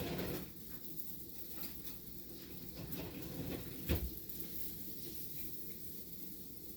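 Strong wind gusting, a steady low rumble, with one sharp knock about four seconds in.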